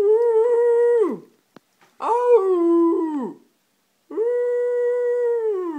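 Siberian Husky–Samoyed mix dog howling: three long held notes, each falling away at the end, the second stepping down to a lower pitch before it fades.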